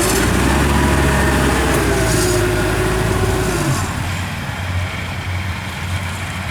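Diesel engine of heavy tracked rice-harvesting machinery running steadily, with a steady whine that stops a little over halfway through, leaving the lower engine note.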